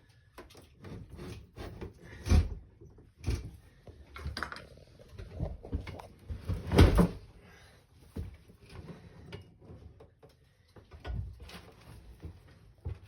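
Irregular thumps, knocks and scrapes of a three-wheeled ATC being wrestled down steps with its front wheel locked. The heaviest thump comes about seven seconds in, and another hard knock about two seconds in.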